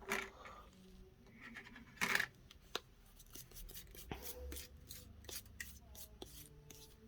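Small hand tools scraping and clicking on a phone during a back-glass repair. A short scrape comes at the start and a louder one about two seconds in, followed by a run of faint ticks and clicks.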